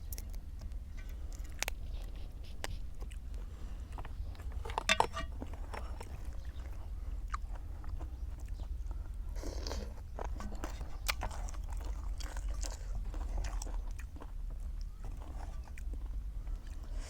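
A person chewing and biting food close to the microphone, with crunchy bites and many small mouth clicks; the loudest cluster of clicks comes about five seconds in. A steady low hum runs underneath.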